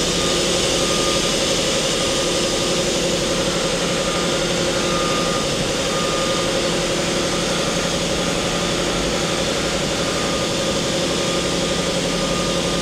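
Mori Seiki MT-2000SZ CNC turning/milling center running steadily while its upper B-axis tool head is moved through its B, X and Z axes, with a higher tone that comes and goes over the steady hum. The axis moves sound good, with nothing out of the ordinary.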